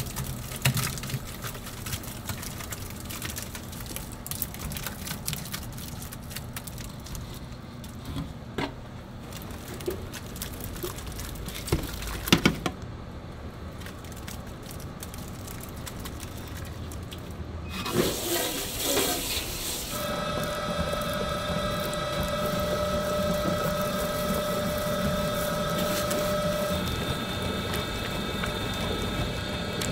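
Kitchen work sounds: scattered clatter and knocks, then a loud rush of water running or pouring about two-thirds of the way in. A steady humming tone from a machine follows it.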